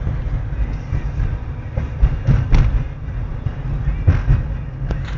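Steady low road rumble inside a moving car's cabin, with a few short knocks about two seconds in and again near the end.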